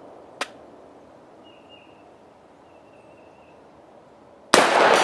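A single shot from a 7.5-inch AR-15 pistol about four and a half seconds in: a sudden loud crack with a long echo trailing off. Before it, a faint click and a short quiet stretch.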